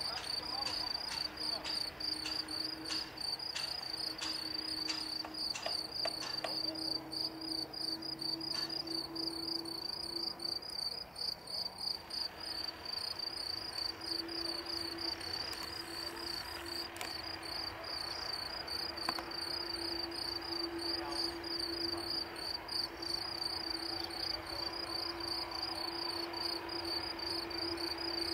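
Crickets chirping in the grass in a fast, even, high-pitched pulse, with a faint steady low hum underneath.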